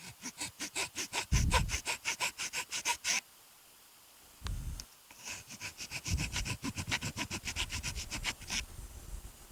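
Ratchet wrench clicking rapidly, about eight clicks a second, in two runs of about three seconds each with a pause between, with dull low knocks mixed in.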